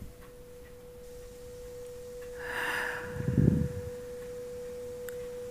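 A steady, pure high hum like a held sine tone. A breathy rush comes about two and a half seconds in, followed by a low thump, the loudest sound, at about three and a half seconds.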